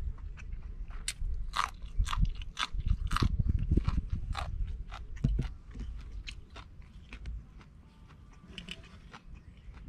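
A person crunching and chewing raw vegetables close to the microphone, sharp crisp crunches about two or three a second that thin out after about five seconds.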